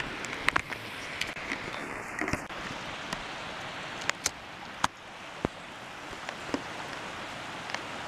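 Scattered, irregular clicks and rustles from a handheld phone being moved close to grass, over a steady hiss.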